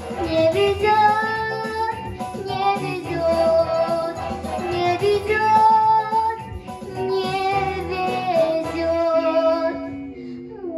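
A young girl singing into a microphone over a pop backing track with guitar. The music stops near the end.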